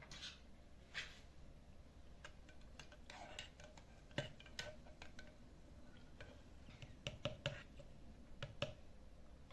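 Scattered light clicks and taps of kitchen glassware and utensils being handled, with a quick run of sharper knocks about seven seconds in.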